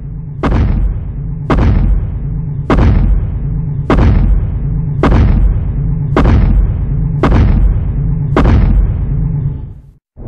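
Deep booming impacts from a giant-monster sound effect, eight of them about a second apart, each a sharp hit followed by a heavy low rumble. They grow louder over the first three and stop abruptly near the end.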